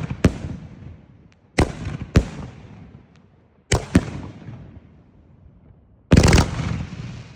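A "Three From Hell" 3x25 firework cake firing: sharp bangs, mostly in pairs a half second or so apart, each fading away, with a denser volley of several quick bangs near the end.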